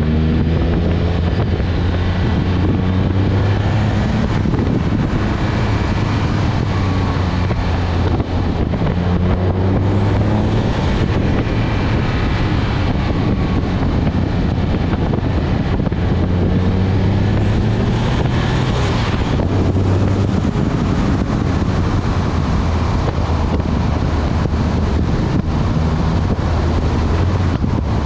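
Twin-turbocharged Nissan 350Z 3.5-litre V6 running hard on the move, its pitch repeatedly rising and falling, over steady road and wind noise. Two brief high whooshes come about ten seconds in and again near nineteen seconds.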